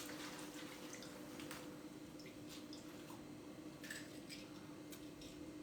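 Scattered drips and small wet ticks of water falling from soaked items lifted out of a flooded storage box, over a faint steady hum.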